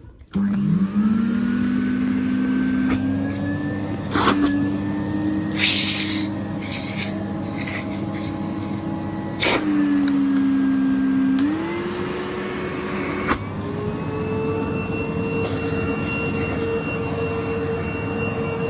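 Numatic Henry canister vacuum cleaner switched on, its motor spinning up with a rising whine and then running steadily. About halfway through the pitch dips briefly, then climbs back and settles higher near the end. A few sharp knocks and hissing are heard along the way.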